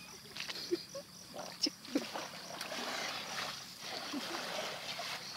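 Shallow muddy floodwater splashing and sloshing as hands grope through it and a woven basket is pushed into it, the splashing heaviest through the middle stretch.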